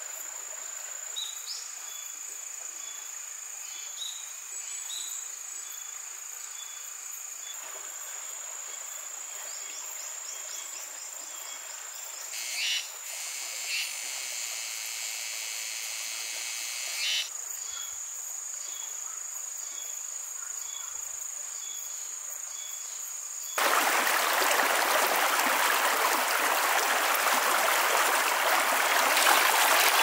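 Insects calling in a steady high-pitched drone, with regular faint chirps and a louder buzzing call for a few seconds in the middle. About three-quarters of the way through, it cuts suddenly to the louder, even rush of a shallow stream running over rocks.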